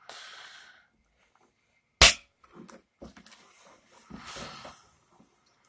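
Plastic console trim around a Volvo V70's handbrake being prised loose by hand: scraping and rustling with small knocks, and one sharp plastic click about two seconds in.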